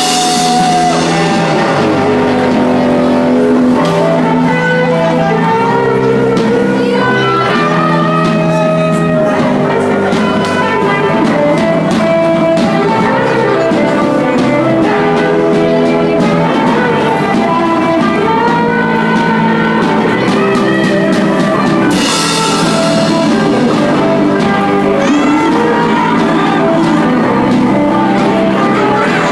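Live rock band playing through a PA: electric guitars carrying a melodic line over bass and drums, loud and steady throughout.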